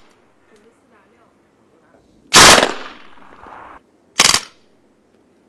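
Two gunshots. The first, about two seconds in, is loud with a trailing decay. The second, shorter report comes about two seconds later.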